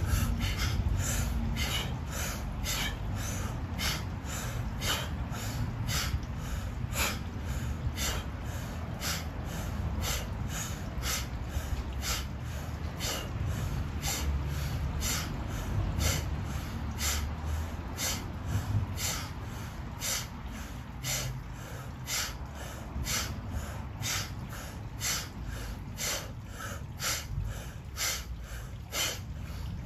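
Breathwork drill of rapid rhythmic breathing: quick inhales through the mouth, each followed by a sharp sneeze-like exhale forced through the nose, about one and a half to two a second, with a low rumble underneath.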